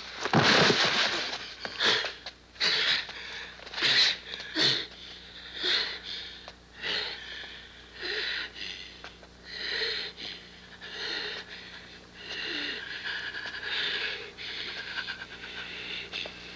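Kung fu fight sound effects: a quick run of sharp swishes and hits in the first half, then a drawn-out raspy wheezing sound through the second half.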